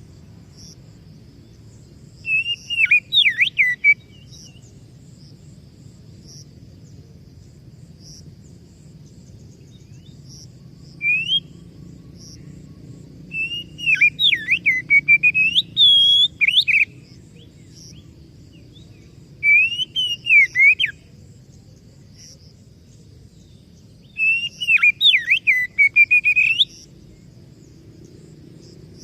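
Oriental magpie-robin (kacer) singing: bursts of loud, whistled phrases with fast sliding notes, each a second or three long and a few seconds apart.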